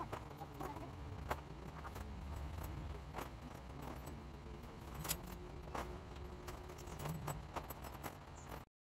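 Scattered light clinks, clicks and knocks of tent parts being handled during tent setup, over a low rumble. The clicks are spaced irregularly, a few seconds apart.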